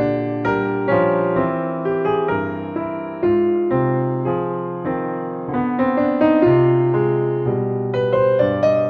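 Background piano music: a gentle melody of struck notes over sustained low chords.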